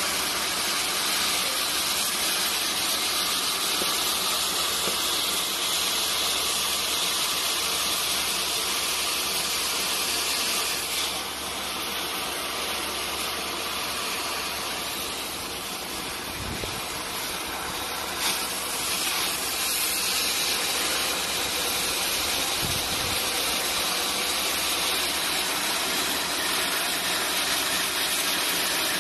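CNC cutting torch hissing steadily as it bevel-cuts a steel vessel head, dipping slightly in level for a few seconds midway.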